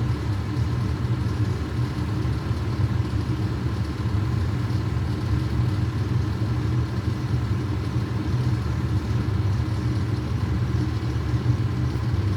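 Fire truck engine idling steadily with a low, even rumble.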